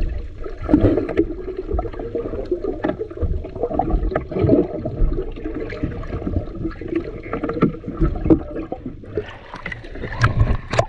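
Water splashing and sloshing, broken up by scattered knocks.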